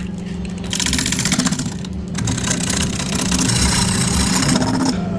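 Electric woodworking machine running with a steady hum, with two long stretches of loud hissing as it works the wood: one of about a second, then one of nearly three seconds.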